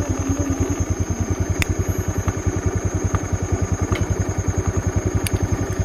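Motor scooter's small single-cylinder engine running steadily at idle, an even low putter of about a dozen beats a second, with a couple of faint sharp clicks.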